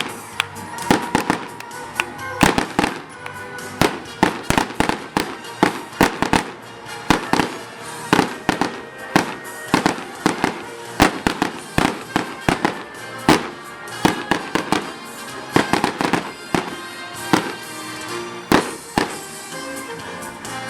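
Fireworks going off in a rapid, irregular barrage of sharp bangs, several a second, with music playing underneath.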